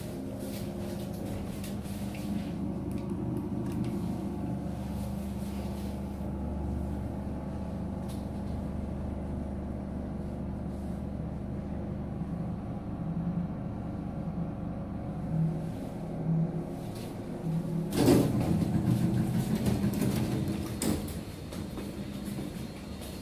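A 1999 Thyssen lift car travelling, with a steady hum and low rumble. About three-quarters of the way through, the lift arrives and its stainless-steel doors slide open, the loudest stretch, then close again.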